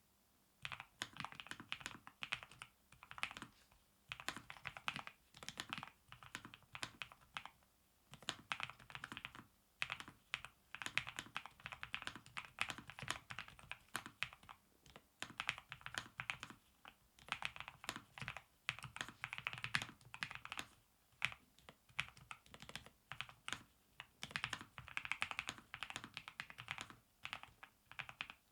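Typing on a NuPhy Air75 V3 low-profile mechanical keyboard with Red nano linear switches: fast runs of keystrokes in bursts of a second or two, separated by brief pauses.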